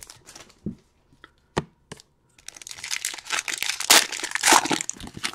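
Trading-card pack wrappers being handled and torn open: a few sharp snaps and crackles, then a longer stretch of crinkling about halfway in.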